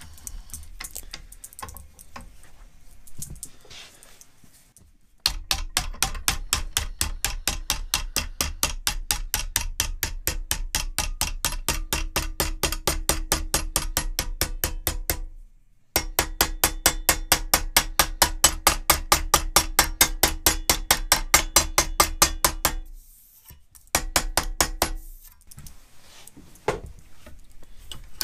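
Plastic-faced mallet rapidly tapping the flange of an aluminium nose-rib blank over a wooden form block, bending it to shape. The blows come at about six a second in two long runs, then a few more near the end.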